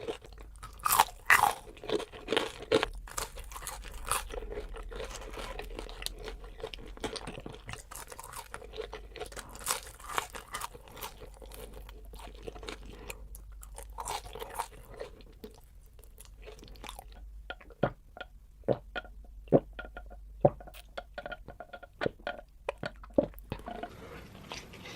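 Close-miked eating: crunchy bites and chewing, with many crisp crunches, thick at first and sharper and more spaced out in the second half.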